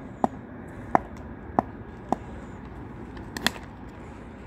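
A few sharp taps about two-thirds of a second apart, then a loud crack of a cricket bat striking the ball about three and a half seconds in.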